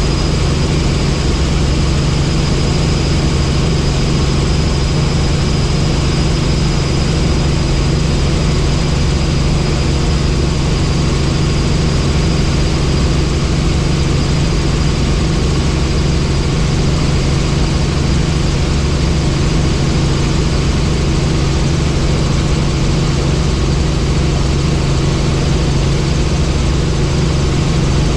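Helicopter in flight: steady, loud rotor and engine noise with a deep hum and a thin high whine, unchanging throughout.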